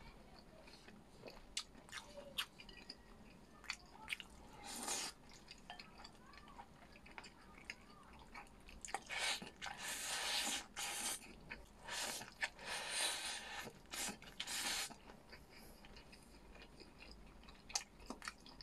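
A person chewing food close to the microphone, with small clicks and crunches and a run of louder noisy chewing bursts about halfway through.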